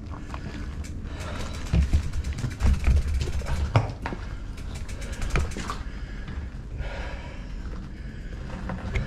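Electric mountain bike riding down a rocky trail: tyres and frame clattering with irregular sharp knocks and rattles over rough ground, over a steady low rumble of wind on the microphone.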